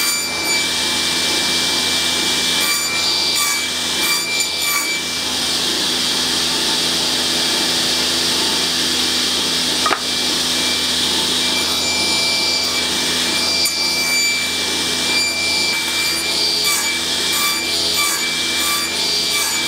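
Table saw running with a steady high blade whine while wooden pieces are crosscut on a sled, the cutting noise swelling and easing with each pass.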